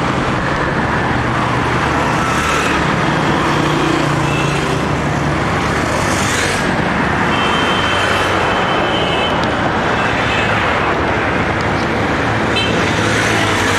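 Steady road traffic: cars, motorcycles and auto-rickshaws running past close by, with a few short horn toots about seven seconds in and again near the end.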